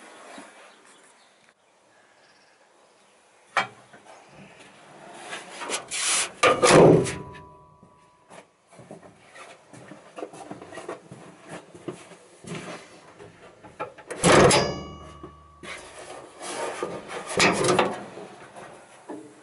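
Datsun 280Z bonnet being closed down onto a foil clearance gauge over the strut top and raised again, heard from inside the engine bay. There is a sharp knock, then rubbing and scraping, with loud clunks a few seconds in and again about two-thirds of the way through; the second clunk carries a brief metallic ring.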